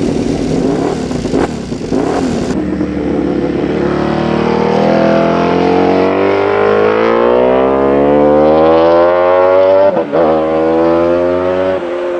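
Honda RC211V's 990cc V5 racing engine, first blipped in short revs on the stand, then pulling hard under full throttle with its note rising steadily. About ten seconds in the pitch drops sharply at a gear change, then the engine pulls on.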